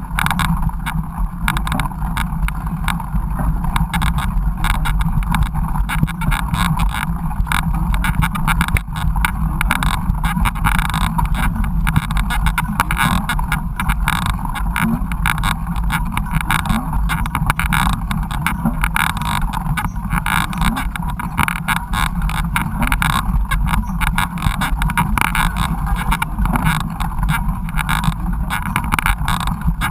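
Steady rumbling and rattling noise of a mountain bike being ridden over a rough trail, picked up by a GoPro camera in its housing.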